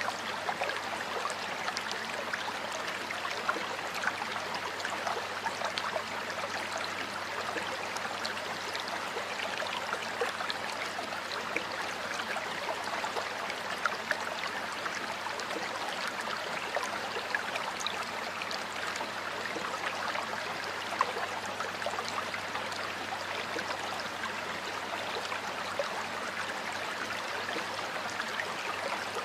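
Stream water running and splashing steadily, with many small irregular bubbling and splashing sounds.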